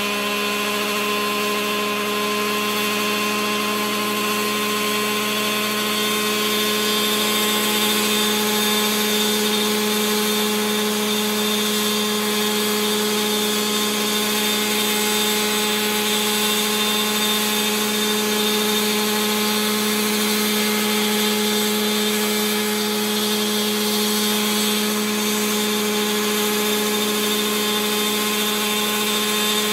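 Align T-Rex 700 radio-controlled helicopter with a gasoline two-stroke engine running steadily as it lifts off and hovers low, the engine and rotor holding a nearly constant pitch.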